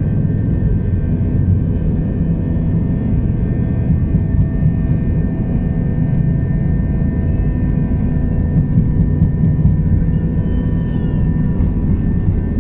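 Airbus A321's jet engines at takeoff thrust during the takeoff roll, heard from inside the cabin: a loud, steady rumble with several steady whining tones above it.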